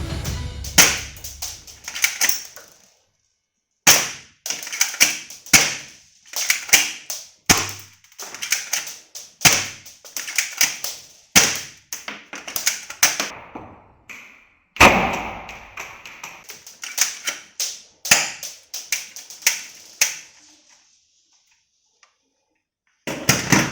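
Hard plastic toy gun parts being handled and clicked together: many irregular sharp clicks and taps, with a short pause about three seconds in and a longer lull near the end.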